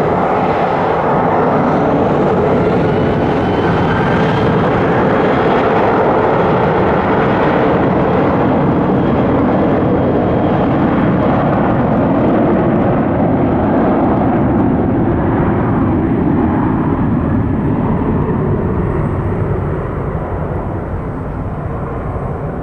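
Boeing 737-800's CFM56 turbofan engines at takeoff thrust during the departure roll and climb-out: loud, steady jet noise with a faint thin whine sliding in pitch in the first seconds, easing slightly near the end.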